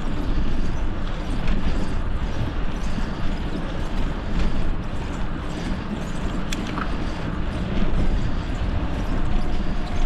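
Steady wind rush on the microphone of a moving bicycle, with road noise underneath, and a faint click about six and a half seconds in.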